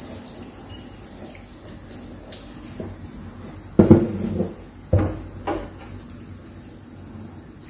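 Pasta cooking water pouring from a pot into a stainless steel sink as the spaghetti is drained, held back with a wooden spoon instead of a strainer. Three loud thumps come about four, five and five and a half seconds in, the first the loudest.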